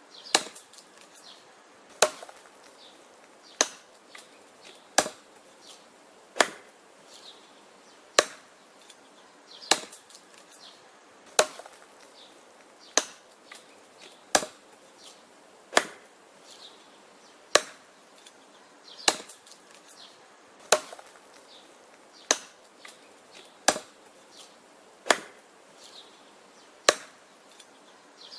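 Wood being chopped: sharp, evenly paced chopping blows, about one every second and a half, each followed by a few small knocks and clicks.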